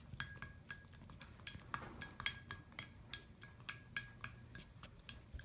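A utensil stirring glue and baking soda in a bowl, clinking lightly against its side in a steady run of faint clicks, about four a second, each with a short ring.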